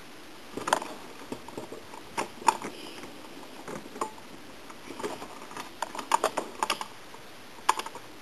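Irregular light clicks and taps of small hard parts and tools being handled while a repaired lamp's circuit board is looked over, with a quick cluster of clicks about six seconds in.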